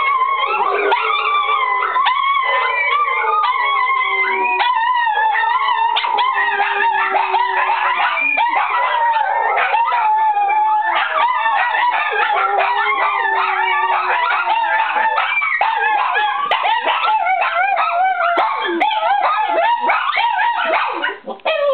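A pack of small dogs (a shih tzu-poodle mix, a Pomeranian, a Chihuahua and a Lhasa apso-pug mix) howling together in overlapping long, wavering howls with yips mixed in, and a person howling along. The howling breaks off about a second before the end.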